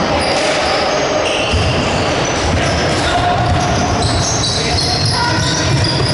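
Basketball game sounds in a gym: a ball bouncing on the court floor, sneakers squeaking in short high chirps, and voices echoing around the hall.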